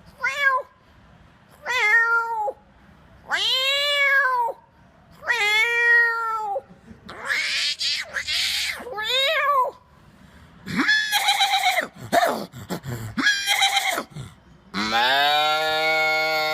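A man imitating cat meows with his voice: a string of separate meows, each rising and falling in pitch, then quicker, more varied calls and one long held call near the end.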